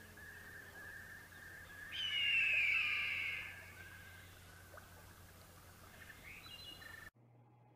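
A bird of prey's single long screech, falling in pitch, about two seconds in, over outdoor nature ambience with faint chirping and a low hum. It all cuts off abruptly near the end.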